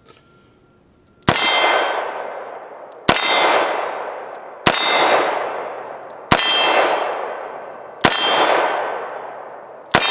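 Six shots from a Smith & Wesson .45 ACP double-action revolver, evenly paced about every second and a half to two seconds. Each sharp report is followed by a long ringing clang that fades away, as a steel target rings from the hit.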